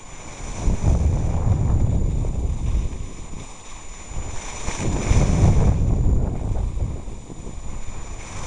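Wind buffeting the microphone in gusts while skiing downhill, with the hiss of skis sliding over snow that swells about halfway through.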